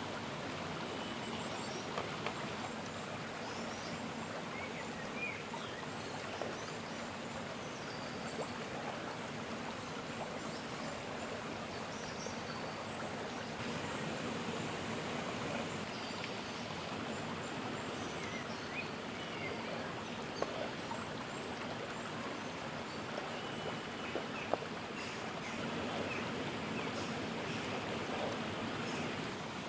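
Steady rush of a flowing stream, with small birds chirping now and then. A few sharp taps sound as a knife cutting raw chicken strikes the wooden cutting board.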